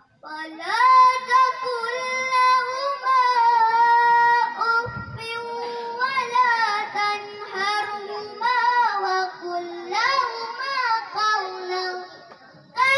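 A young girl reciting the Qur'an in Arabic in the melodic tilawah style, holding long notes with ornamented turns and pausing briefly for breath.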